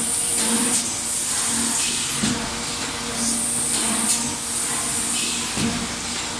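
Plastic cup-making and thermoforming machinery running, with a steady hum and a high air hiss that swells and fades. Sharp hissing strokes come roughly every two seconds, about four times.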